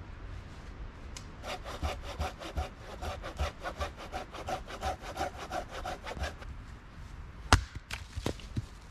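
Handsaw cutting through a log with a quick, steady run of strokes, several a second, for about five seconds. Then an axe strikes a round of firewood once with a loud, sharp crack, followed by a couple of lighter knocks.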